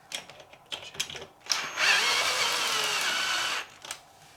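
Cordless drill-driver running for about two seconds, driving in a bolt coated with Loctite, its whine sagging slightly as it loads up, then stopping abruptly. A few sharp clicks of handling come before it.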